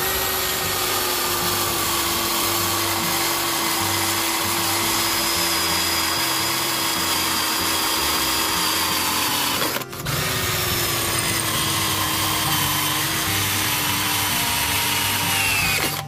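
Dekton D21 21 V cordless drill running at high speed in plain drill mode, boring into steel; its motor whine holds steady with the pitch sinking slightly under load. It stops briefly about ten seconds in, then runs again.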